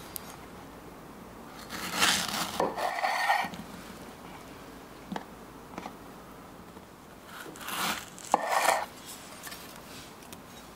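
Kitchen knife slicing through fresh strawberries and meeting a wooden cutting board, two cuts about five seconds apart, with a few light taps between.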